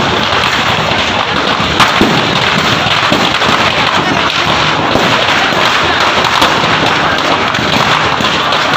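Firecrackers going off inside a burning building: a dense, continuous crackling of pops and small bangs, with one louder bang a couple of seconds in, over the voices of onlookers.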